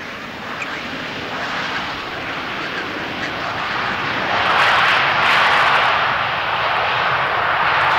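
Boeing 737-800's CFM56 jet engines on landing rollout on a wet runway, a steady roar with the hiss of spray, swelling to its loudest about halfway through as reverse thrust builds.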